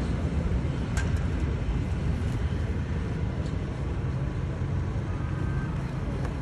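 Steady low outdoor rumble, with a single sharp click about a second in.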